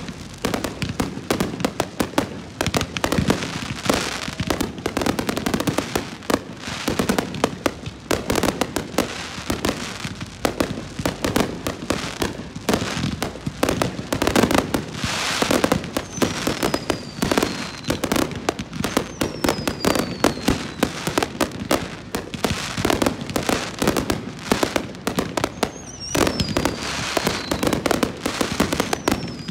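Aerial fireworks display in a rapid barrage: booming shell bursts and crackling with no pause. Several high whistles falling in pitch sound in the second half.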